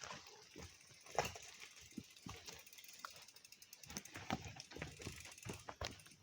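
Irregular sharp clicks and knocks, several a second, the loudest a little over a second in.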